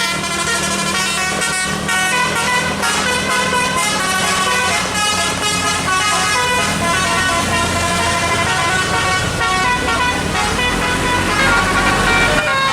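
Bus telolet horn, a multi-tone musical air horn, playing a quick melody of changing notes. A steady low engine hum runs underneath.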